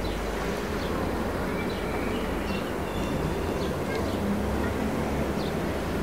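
Small-town summer ambience: a steady low rumble of distant traffic, swelling slightly past the middle, under birds chirping, with short high chirps about once a second and a few brief whistles.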